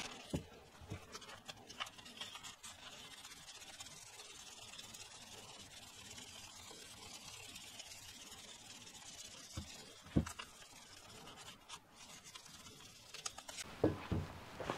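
Faint rubbing of very fine 3000-grit wet-and-dry paper, wetted with WD-40, worked up and down the chrome inner tube of a Triumph 675 upside-down fork to take off surface pitting and corrosion. A few light knocks of the fork and tools being handled, the clearest about ten seconds in and near the end.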